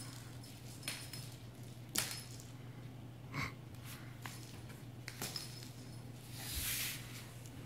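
Quiet room with a steady low hum, a few scattered light knocks on a hardwood floor, and a short breathy hiss about six and a half seconds in.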